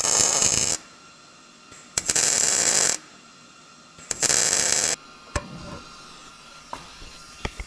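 Miller MIG welder with .023 wire tacking an exhaust pipe joint at the muffler: the arc crackles in three bursts about a second long each, with pauses of about a second between, the last ending about five seconds in, followed by a few faint clicks.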